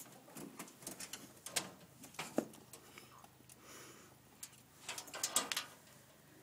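Ferrets scampering and hopping about on the floor in play, the excited bouncing of a weasel war dance: irregular paw patter, scrabbling and light knocks. A sharp knock comes a little over two seconds in, and a flurry of knocks about five seconds in.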